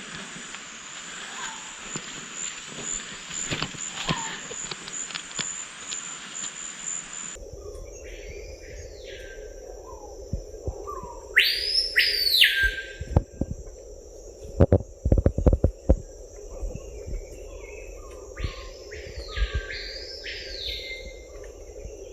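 Rainforest ambience: a steady high insect drone, with loud whistled bird calls that rise and fall, one about a third of the way in and several more near the end. A few knocks come near the middle.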